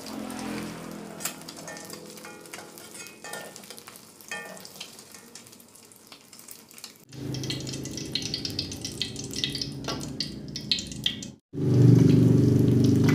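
An egg frying in hot oil in a wok, sizzling and crackling with spattering pops. About halfway in a steady low hum joins, loudest over the last second or so, and the sound cuts out briefly twice.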